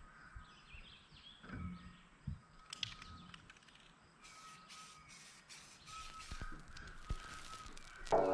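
Aerosol spray-paint can hissing in a quick run of short bursts, about two a second, as paint is sprayed through a grid stencil, starting about four seconds in after one brief burst a little earlier.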